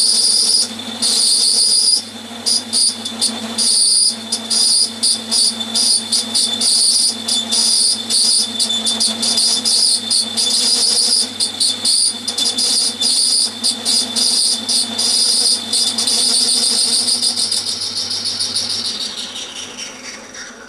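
Atlas 10 metal lathe turning a metal bar, giving a steady high-pitched whine with a rapid chattering flutter. Near the end the motor is switched off and the whine falls in pitch and fades as the lathe spins down.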